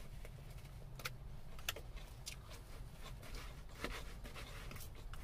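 Close-up eating sounds: a mouthful of salad being chewed, with scattered soft clicks and crunches, and a metal fork picking through a plastic salad container, over a low steady hum.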